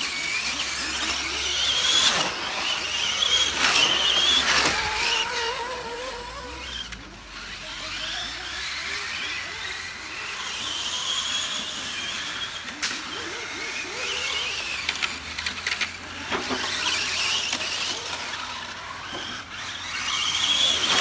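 1/8-scale brushless 6S electric RC GT cars, among them a Serpent SRX8 GTE, racing round the track: the motors give a high whine that rises and falls as the cars accelerate and brake. The whine swells loudest as cars pass close, about two to five seconds in and again near the end.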